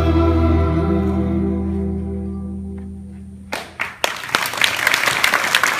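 Bachata music's last held chord fading out. About three and a half seconds in come two sharp claps, and an audience starts applauding a moment later.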